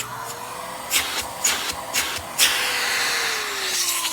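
Miele S 168 vacuum cleaner motor running at speed with a steady whine and rush of air, several knocks from handling it along the way. Near the end the pitch begins to fall as the motor winds down.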